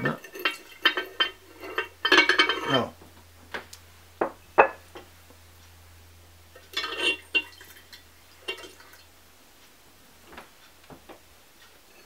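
Ceramic pieces clinking and scraping as a stoneware insert is set into and shifted on a ceramic pet-fountain lid: a dense run of knocks in the first three seconds, then scattered single clinks. A faint steady low hum sits underneath for much of it.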